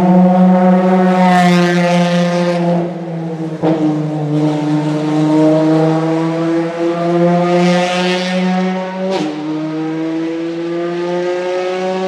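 Ferrari FXX K Evo's V12 engine pulling away at low speed, its pitch climbing slowly and dropping sharply at two upshifts, about three and a half and about nine seconds in. It grows fainter as the car moves off.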